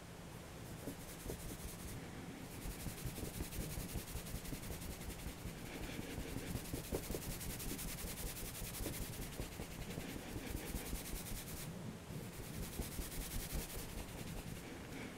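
Fingers rubbing and scratching through dry hair close to the microphone, a continuous crackly scratching with a hiss that swells and fades in stretches.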